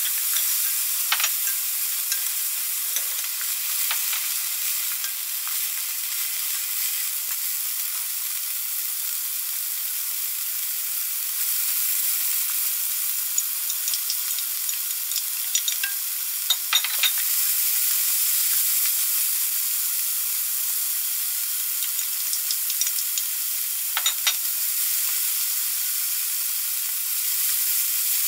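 Minced pork sizzling as it fries in a pan, stirred with a wooden spatula, with a few sharp clicks as it is stirred. The sizzle grows a little louder about a third of the way in.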